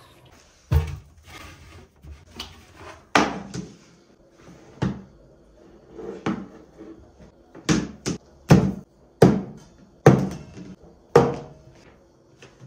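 About a dozen hard knocks and clunks as a white plastic basket organiser is set down on a wooden countertop and metal vacuum flasks are stood in it one by one. The knocks come closer together in the second half.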